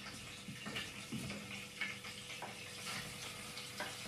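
Ground masala paste being scraped out of a steel mixer-grinder jar into a hot frying pan: faint sizzling, with several light taps and scrapes of the spoon against the jar.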